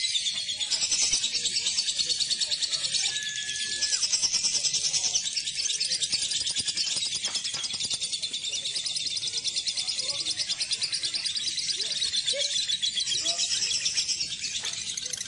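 Lovebirds chattering in a long, unbroken, rapid high-pitched trill, with a couple of short whistled notes in the first few seconds.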